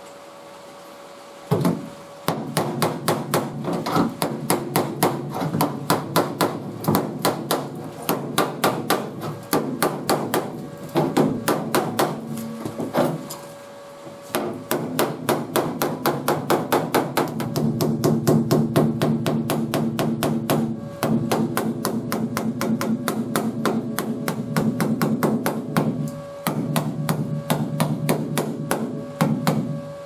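Steel body hammer striking a welded sheet-metal patch panel on a 2003 Ford F-150's wheel arch, backed by a hand-held dolly: hammer-and-dolly work shaping the patch's edge. Runs of rapid blows, several a second, with a metallic ring and a few short pauses.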